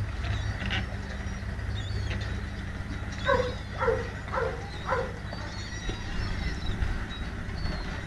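A dog barks four times in quick succession, about half a second apart, over a steady low rumble.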